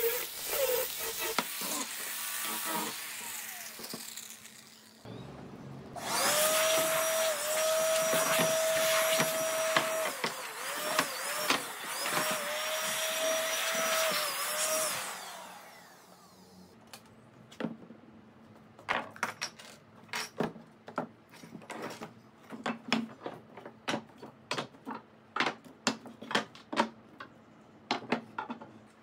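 An angle grinder with a sanding disc sands a pine board and then winds down. A handheld electric blower then runs for about nine seconds, with its motor pitch dipping a few times, blowing sawdust off the workbench. Near the end come a string of wooden knocks as boards are set down on the table.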